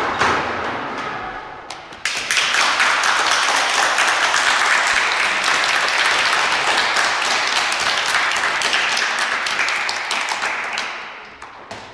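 Routine music fading out, then applause starting suddenly about two seconds in, a dense patter of many hands clapping that runs for about nine seconds and dies away near the end.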